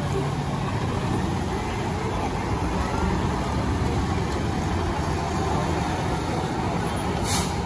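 Fire engine's diesel engine running as the pumper rolls slowly past, a steady low rumble. A brief hiss comes near the end.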